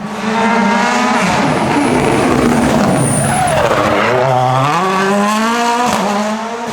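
Rally car's engine at full throttle, loud and close. The engine note dips about four seconds in, then climbs again as it accelerates away.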